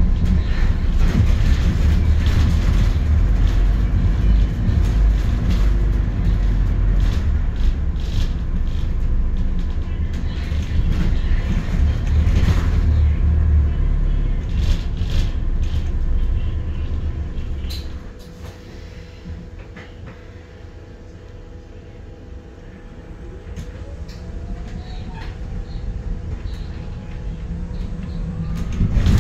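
Double-decker bus heard from inside while it is moving: heavy engine and road rumble with rattles. The rumble drops away sharply about two-thirds of the way through. A rising whine follows as the bus gathers speed again.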